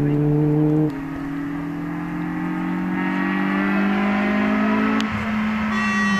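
Rally car engines held at high revs. The first car's engine note drops away sharply about a second in, and another rally car's engine is heard approaching, growing clearer near the end.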